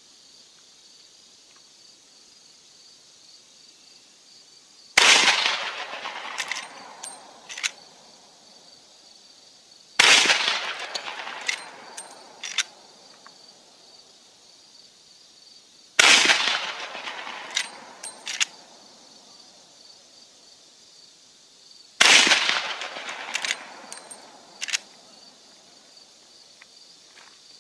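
Four shots from a Marlin 1895 lever-action rifle in .45-70 Government, about five to six seconds apart, each with a long fading echo. A second or two after each shot come a few sharp clicks as the lever is worked to eject the case and chamber the next round.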